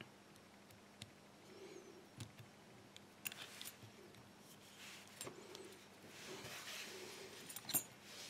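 Faint clicks and short metallic scrapes of a tension wrench and pick being fitted and worked in the keyway of a Brinks 5-pin brass padlock, with a few sharper clicks scattered through.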